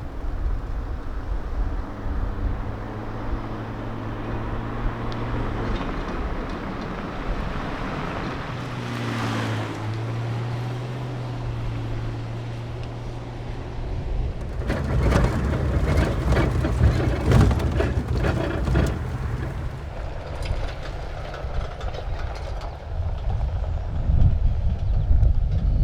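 A vehicle's engine runs with a steady low drone while driving, briefly dipping in pitch partway through. From about halfway a dense rattling and knocking comes in over it, as over rough ground.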